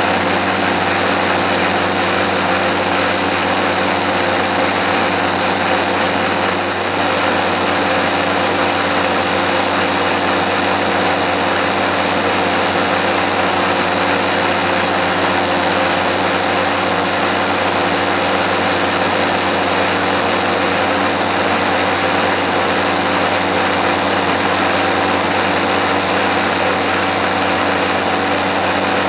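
Cordless 18 V brushless garden power tool running steadily at constant speed, a continuous motor whine over a wide rushing noise.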